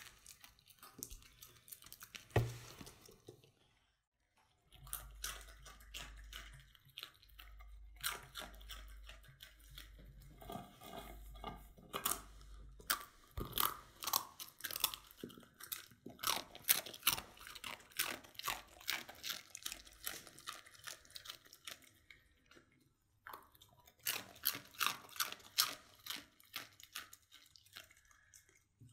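A dog crunching and chewing dry, uncooked instant ramen noodles in quick runs of sharp crunches, with two short pauses. There is a single louder knock about two seconds in.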